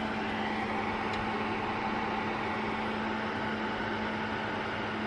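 A cooling fan running steadily, a constant whir with a low, even hum underneath.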